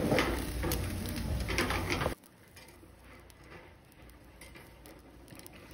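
Restaurant table clatter with sharp clicks and background voices, which cuts off abruptly about two seconds in. What follows is faint crackling and sizzling from scallops grilling in their shells over charcoal, with scattered small ticks.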